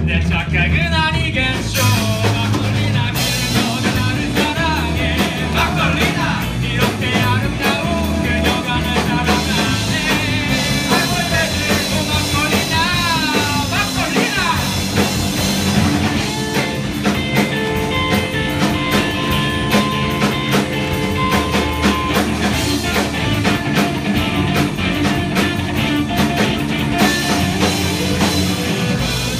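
Live rock band playing a song: a singer over drum kit and backing instruments, at a loud, steady level.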